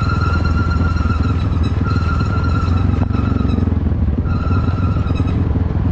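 Yamaha Grizzly 400 ATV's engine running at a steady trail-riding pace: a dense low rumble with a steady high whine over it that drops out twice.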